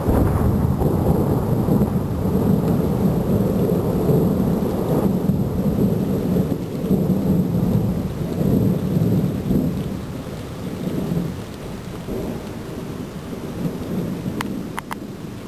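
Long rolling rumble of thunder over steady rain, easing off about ten seconds in. A few sharp clicks near the end.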